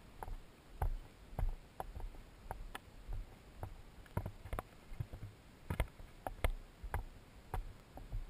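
Footsteps of a hiker walking a dirt trail: regular thuds with small clicks, about three steps every two seconds, with the body-worn camera jostling against clothing.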